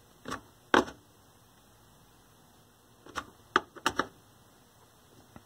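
Sharp clicks from the switches and knobs of a Beltron picture tube restorer being worked: two near the start, then a quick run of four about three to four seconds in.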